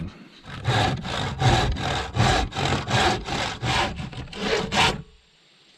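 Handsaw cutting through a wooden plank in quick, even strokes, about three to four a second, stopping about five seconds in.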